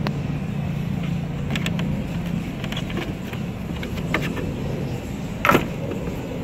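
Light clicks and one sharp knock of plastic parts being handled as a hand works the blower motor's wiring connector and housing loose from the A/C evaporator case. A steady low hum runs underneath.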